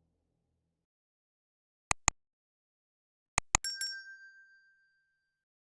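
Sound-effect clicks: two sharp clicks in quick succession, then another quick pair with a little rattle, followed by a bright metallic ding that rings out and fades over about a second and a half.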